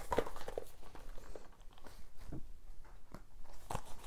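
Handling noise from plastic DVD box-set cases being closed and moved about: a few soft clicks and knocks with faint rustling between.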